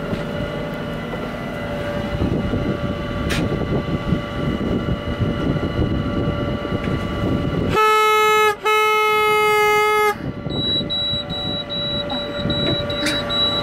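A boat horn sounds two blasts about eight seconds in, a short one then a longer one, each a single steady note rich in overtones, over a steady low rumble.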